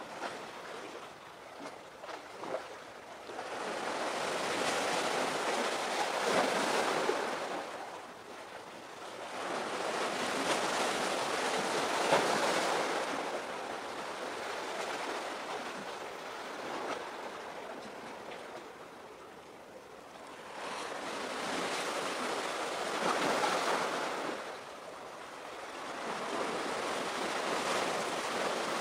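Sea waves washing onto the shore, swelling and fading in about four slow surges of a few seconds each.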